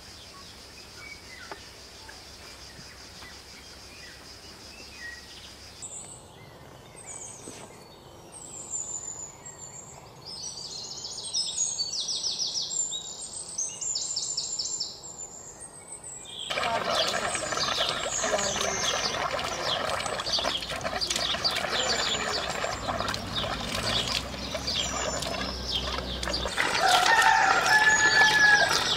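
Birds singing: a steady high-pitched hum for the first few seconds, then birds singing repeated trills, and from about halfway a denser, louder chorus of bird calls, with one louder call near the end.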